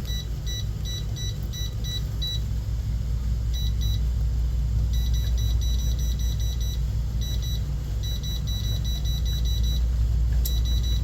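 Electric fireplace control panel beeping in several quick runs, about three to four short beeps a second, as its settings are stepped through, over a steady low rumble.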